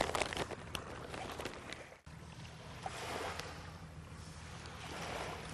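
Sail fabric rustling with small clicks as a sail is wrapped around a catamaran's mast. About two seconds in the sound breaks off and gives way to an even rushing background of breeze and water that swells twice.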